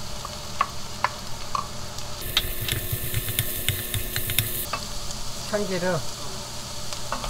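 Julienned potato, onion and diced carrot sizzling in a nonstick wok while a wooden spatula stirs them, knocking and scraping against the pan. The sizzle and clatter grow louder and brighter for a couple of seconds in the middle as the vegetables are turned over.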